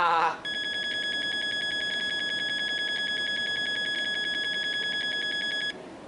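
Dell desktop computer's internal speaker sounding one long, steady, high-pitched electronic beep with a fast flutter for about five seconds, then cutting off suddenly. It is a boot-time warning beep: the machine has stopped at a startup error screen that needs F2 to continue.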